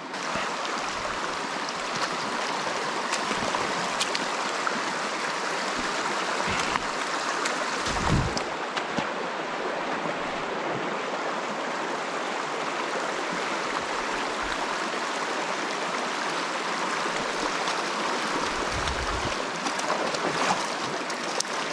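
Small mountain trout stream, its water rushing steadily. A low thump comes about eight seconds in and another a few seconds before the end.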